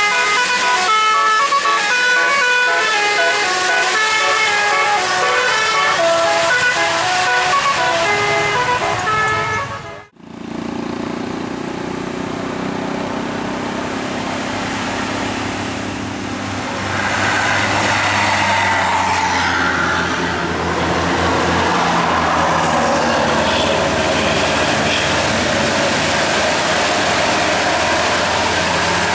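A tour bus's telolet basuri multi-tone musical air horn plays a quick tune of stepped notes for about ten seconds, then cuts off abruptly. After that comes steady engine and road-traffic noise.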